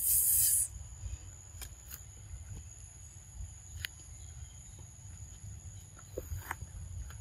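Insects calling in a steady, high-pitched drone, over a low rumble. A loud hissing rustle fills the first moment, and a few faint clicks come and go.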